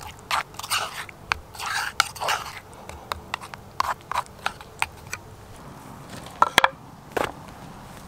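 A spork stirring and scraping a thick creamy sauce in a wooden bowl: a quick run of short clicks and scrapes for about five seconds, then quieter, with a sharp double click about six and a half seconds in.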